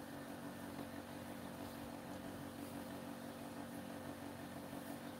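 Steady low mechanical hum over a faint hiss: room tone with no distinct events.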